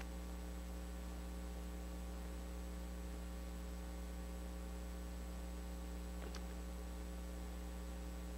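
Steady electrical mains hum, with a faint click about six seconds in.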